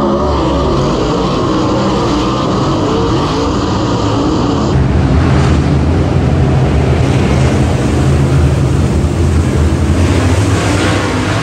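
Dirt late model race cars' V8 engines running hard, their pitch wavering up and down as they rev. About five seconds in the sound changes abruptly to a deeper, denser engine sound.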